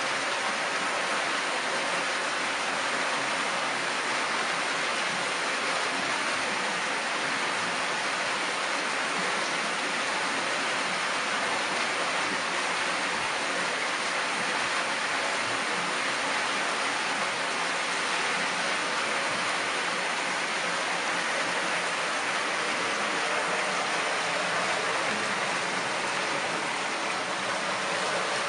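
Steady rush of flowing water in a water treatment plant, an even, unchanging noise throughout.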